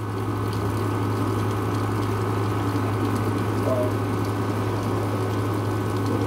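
Steady hiss of rain, with a constant low hum underneath.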